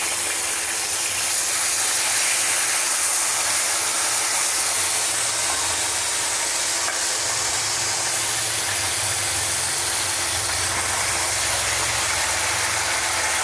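Marinated pork chops sizzling steadily in hot oil and margarine in a frying pan as more chops are laid in, with a steady low hum underneath.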